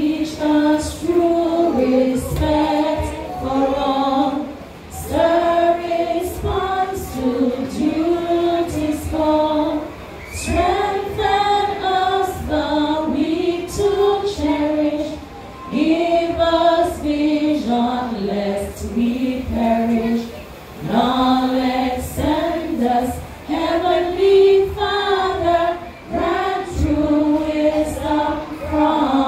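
A group of people singing a song together, mostly women's and children's voices, in phrases of about five seconds with short breaks for breath between them.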